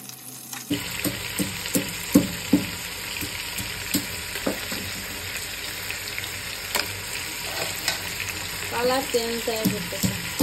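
Crab claws and legs frying in hot oil in a metal pot: a steady sizzle that starts under a second in, with irregular knocks and scrapes as a spatula stirs the shells against the pot.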